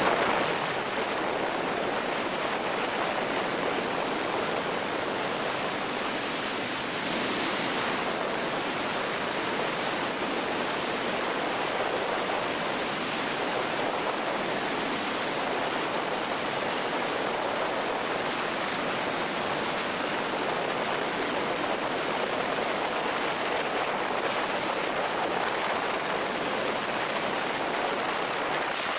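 Steady rush of freefall wind over a helmet-mounted 360° camera's microphones: an even, unbroken roar of noise.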